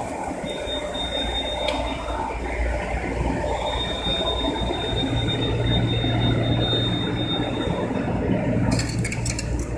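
Steady hum of warehouse machinery, with a thin high whine that comes and goes and a quick run of clicks or rattles near the end.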